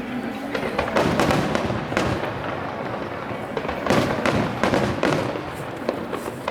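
Fireworks display: aerial shells bursting in a run of sharp bangs, several in a few seconds, with crackle between them.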